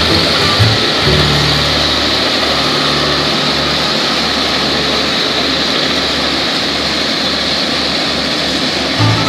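Engine of an old crawler tractor running steadily under load as it ploughs a flooded rice paddy: an even low hum with a hiss over it. Background music comes back near the end.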